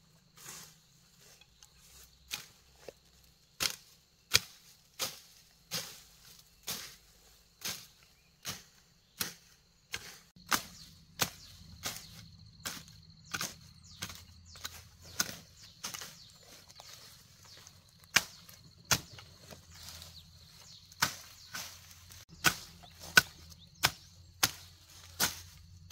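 A short wooden-handled machete hacking through weeds and undergrowth in repeated sharp chops, about one to two a second.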